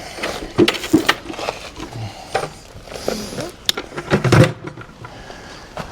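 Scattered knocks, clicks and clatter of objects being handled, with a couple of heavier thumps a little after the middle.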